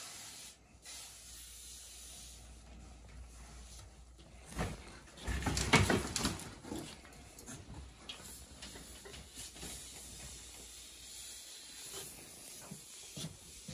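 Steady hiss of insecticide spraying from the wand nozzle of a hand-pump compression sprayer as bedbug treatment is applied along the mattress seam and bed frame. There is a louder burst of rustling and knocking about five to six seconds in.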